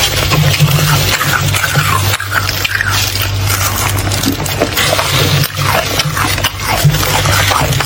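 Thick freezer frost being crunched and scraped, a dense run of crisp crackles over a steady low hum.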